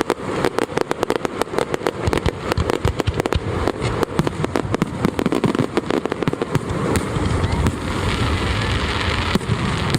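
Fireworks going off in a dense, rapid barrage of bangs and crackles, many a second without a break, with a deeper rumble building under them in the second half.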